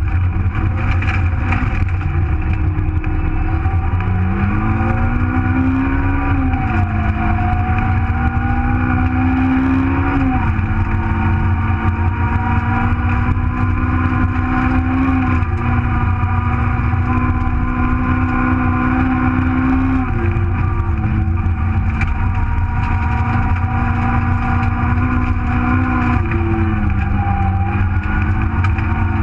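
A 1.4-litre Nissan Micra rally car's engine at full work, heard from inside the cabin. The engine pitch climbs and drops off sharply several times as the gears change, over a constant heavy rumble of road and tyre noise.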